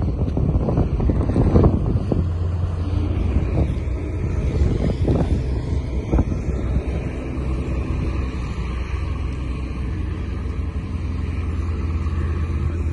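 A heavy engine running steadily: a low rumble, rough for the first couple of seconds, then settling into an even hum.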